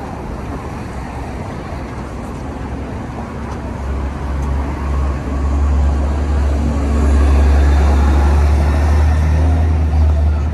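City street traffic noise, with a heavy vehicle's low engine rumble building from about four seconds in and loudest in the second half as it passes close.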